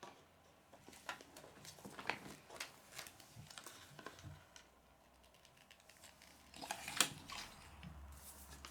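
Rustling and clicking of plastic packaging and small plastic toy pieces being handled and unwrapped, in short scattered bursts, with the sharpest click about seven seconds in.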